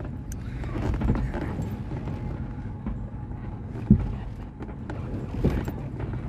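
Off-road 4x4 engine running low and steady while the vehicle crawls over rough ground, with scattered knocks and clunks. The loudest is a sharp knock about four seconds in.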